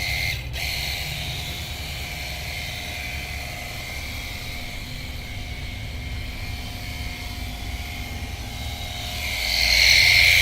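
Cordless pressure washer running and spraying, a steady motor whine with the hiss of the water jet over a low rumble. The spray cuts out briefly just after the start and grows louder near the end.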